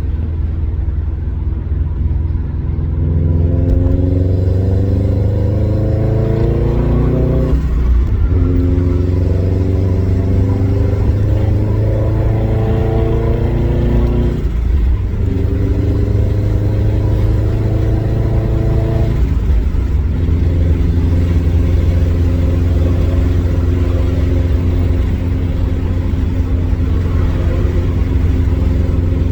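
Subaru WRX STI's turbocharged flat-four engine with a tuned intake, downpipe and AWE Touring catback exhaust, pulling hard through the gears. Its pitch climbs steadily, then breaks and drops at three upshifts about 8, 15 and 19 seconds in, with turbo flutter in the brief gaps at the shifts. It then runs at a steady pitch.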